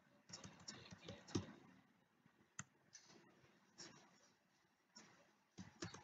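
Faint computer keyboard typing: irregular, separate keystroke clicks as a word is typed.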